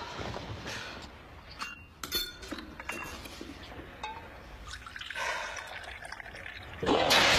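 Faint scattered clinks and small knocks of a cup and spoon, with a short ringing clink about two seconds in. Near the end, loud music comes in suddenly.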